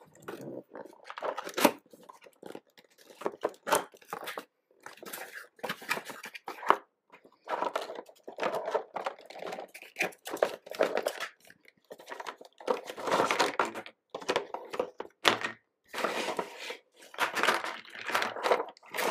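A cardboard toy box being opened by hand: flaps pulled and torn open with irregular rustling, scraping and clicks. Near the end, moulded plastic parts and bagged pieces tip out onto the table with knocks and crinkling plastic.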